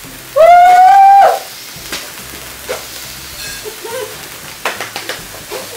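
A party horn blown once for about a second, its note rising slightly at the start. Under it and after it runs the steady hiss of Gold Fontana cake fountains spraying sparks, with a few light clicks.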